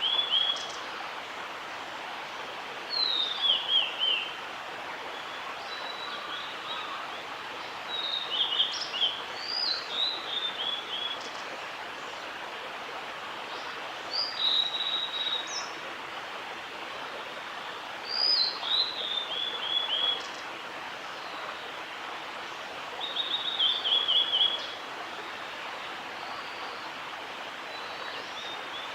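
Male blue-and-white flycatcher singing: about eight short phrases a few seconds apart, each a few high clear notes ending in a quick descending run, over a steady background hiss.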